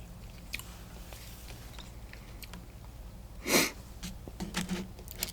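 Close-miked mouth sounds of someone eating a sourdough sandwich: faint chewing and small clicks, with one short, sharp sniff or breath about three and a half seconds in.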